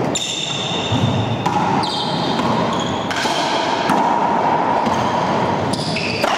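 Racquetball doubles rally: a series of sharp cracks as the ball is struck by racquets and hits the court walls, echoing in the enclosed court. Short high squeaks run between the hits.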